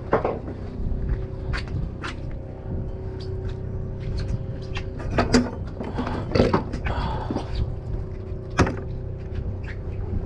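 A boat's engine running with a steady low hum, and a few sharp knocks and thumps on the deck, the loudest two near the middle and about two-thirds through.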